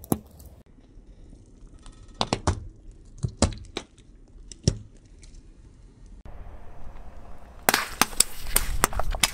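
A car tyre rolling onto stress balls and crushing them, giving a series of sharp pops and cracks: several single ones spread over the first five seconds, then a dense run of crackles near the end.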